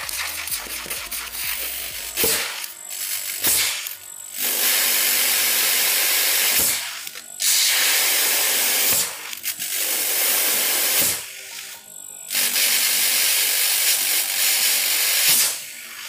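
Small refrigerator compressor, a two-door fridge type, running and blowing air out of its discharge tube in loud hissing blasts of one to three seconds, cut off between blasts while the outlet is blocked by hand. This is a check of the discharge pressure after an oil change.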